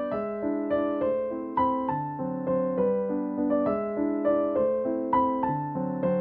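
Background piano music: a steady run of struck notes, each dying away, over lower held notes.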